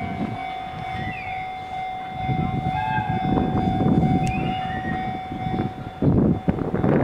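EF210 electric locomotive and its freight train rumbling toward and through a level crossing, growing loud about six seconds in, while the crossing's warning alarm sounds as a steady high tone.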